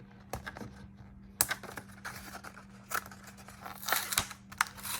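Yu-Gi-Oh card package being torn open by hand: crinkling and tearing of the wrapper with scattered small clicks, growing louder and busier near the end.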